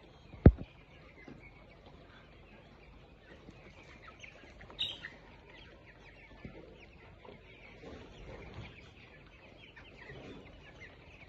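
Chickens clucking softly, with many short high chirps throughout and a sharper call about five seconds in. A sharp knock about half a second in is the loudest sound.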